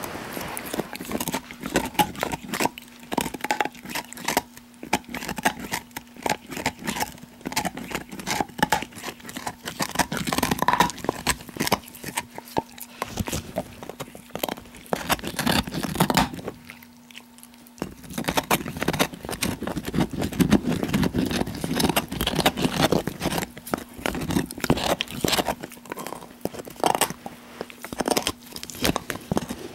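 Australian cattle dog (blue heeler) gnawing on a large bone: an irregular stream of crunches, cracks and scrapes from teeth working the bone, with a brief pause a little past halfway.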